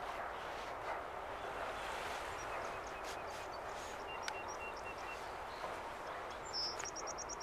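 Steady outdoor wash of noise with faint bird calls: a few short high notes about three seconds in and a quick run of chirps near the end.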